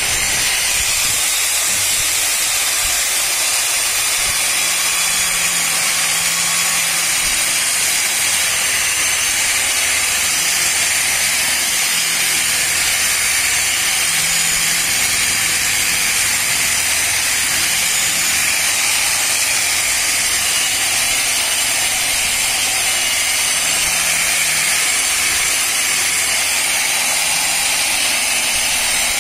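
Electric rotary buffer (polisher) with a wool bonnet pad running at a steady speed, buffing polishing cream into a yellowed, scratched plastic motorcycle headlight lens. A steady, even hiss and whine from the motor with a low hum underneath.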